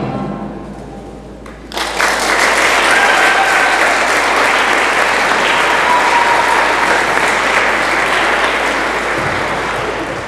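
Music fades out, then about two seconds in an audience breaks into steady applause.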